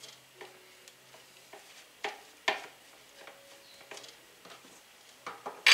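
Metal fork scraping and tapping against a plate while flaking canned tuna: scattered light clicks, two sharper clinks about two seconds in, and a loud clack near the end.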